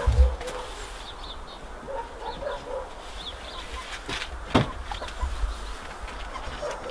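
Domestic hens clucking softly in short, scattered calls. A low bump sounds right at the start and a sharp knock about four and a half seconds in.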